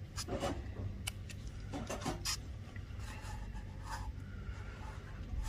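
Low steady background hum with a few faint clicks and short rubbing noises from fine dissecting instruments being handled.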